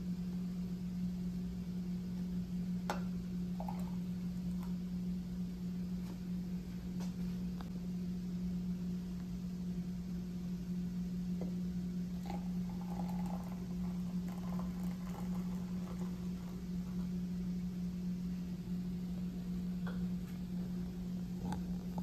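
Hot water poured from a plastic measuring cup into glass mugs, a faint trickle about twelve seconds in with a few light clicks, over a steady low hum that is the loudest sound throughout.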